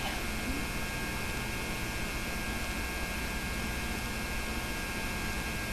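Steady electrical hum and hiss from an old tape transfer, with no other sound.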